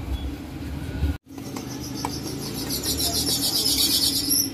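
A sandwich grilling on a flat steel griddle at a street-food cart, over a steady low hum. A fast, evenly pulsed, high-pitched chirring comes in halfway through. The sound drops out briefly about a second in.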